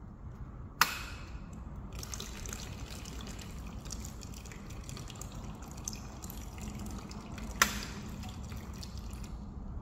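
A self-powered wireless switch clicks, and about a second later a small fountain pump starts spouting water into a bird bath, trickling and splashing steadily. Near the end the switch clicks again and the water dies away a moment later.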